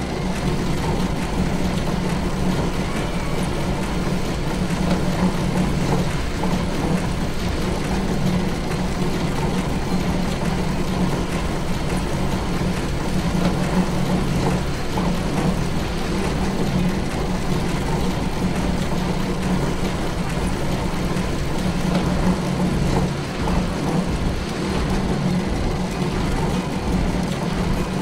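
Steady mechanical running of factory production-line machinery with conveyor belts: a continuous low hum under a dense clatter, with no breaks.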